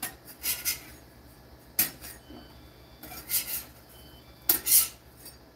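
Metal spatula scraping and clicking on a steel Weber flat-top griddle as toasted hot dog buns are slid up and lifted off: a handful of short scrapes with a sharp click near 2 seconds, the loudest scrape near the end.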